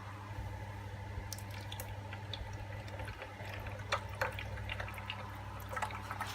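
Vegetable oil heating in a frying pan, with scattered small ticks and pops that grow more frequent toward the end as the oil gets hot enough to fry an egg, over a steady low hum.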